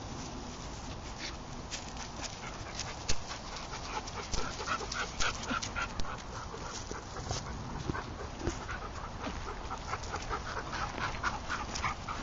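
A dog panting in quick, even puffs, about four a second, in two spells, with scattered sharp crunches of steps on gravel.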